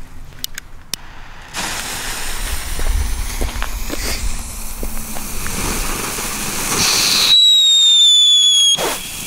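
Pyroland Alien Sirenen youth firework fountain: after a few sharp clicks it ignites into a steady hissing spray of silver sparks, then near the end gives a loud whistle sliding slowly down in pitch for about a second and a half, which cuts off suddenly.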